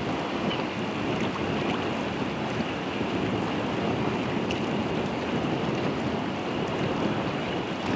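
Strong wind buffeting the microphone, a steady rushing noise that stays even throughout.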